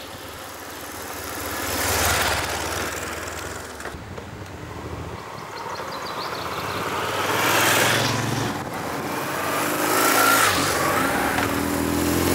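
Road vehicles passing by, a noisy rush that swells and fades about three times, one with a brief whine.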